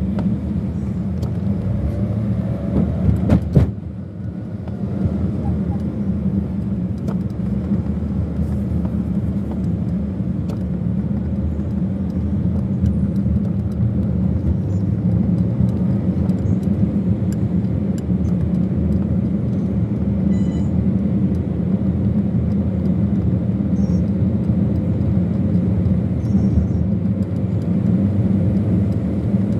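Steady low rumble of a road vehicle moving slowly in city traffic, heard from on board. A few sharp knocks about three seconds in are the loudest moment.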